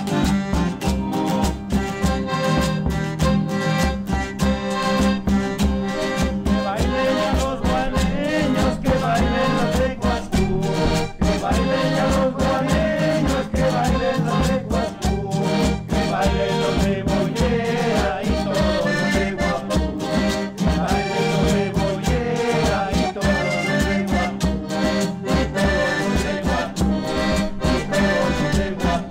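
Traditional Andean dance music from the Colombian highlands: an instrumental ensemble playing over a steady, even bass beat.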